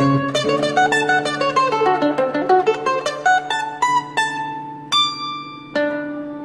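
Bandolim (Brazilian mandolin) playing a quick run of plucked notes, then slowing to a few longer ringing notes near the end, over the low bass notes of a seven-string acoustic guitar accompaniment.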